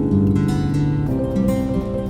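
Background music: plucked acoustic guitar playing held notes that change every second or so.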